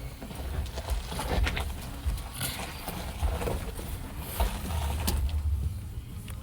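Off-road vehicle crawling over a rough trail: an uneven low rumble with scattered knocks and rattles.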